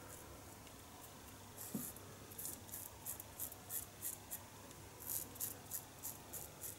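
1930s Gillette "New" Long Comb three-piece open-comb safety razor cutting lathered stubble: short, faint, scratchy strokes, a few a second, starting a couple of seconds in.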